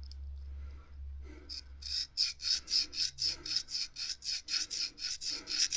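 Scandi-ground steel knife blade (Mora Garberg) scraped back and forth on a Fallkniven DC4 whetstone in quick, even strokes, about three to four a second, starting about two seconds in. A low hum runs under the first two seconds.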